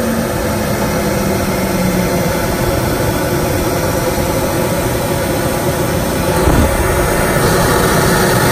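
National Optronics 7E patternless lens edger running, its edging wheel spinning against a clamped lens under water spray, making a loud steady whir and hiss. A low hum at the start steps down in pitch and fades out by about two seconds in.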